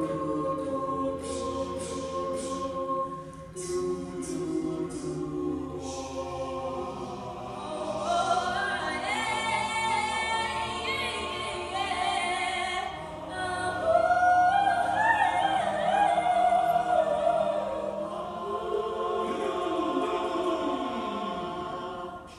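A mixed-voice student a cappella group singing in several-part harmony, with no instruments. The singing swells in the second half and fades out near the end.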